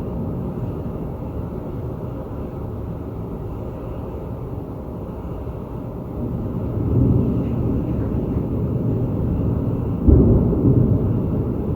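Thunder rolling in a long, continuous low rumble that swells about seven seconds in, then a sudden sharper clap about ten seconds in that rumbles away.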